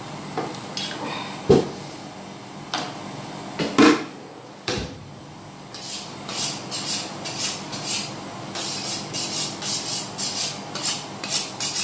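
Kitchen knife drawn along a honing steel in quick metallic scraping strokes, about three a second, starting about halfway through. Before that, a few sharp knocks.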